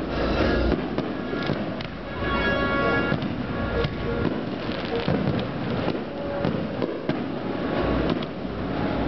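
Aerial firework shells bursting one after another at a fireworks display, several deep booms mixed with crackling.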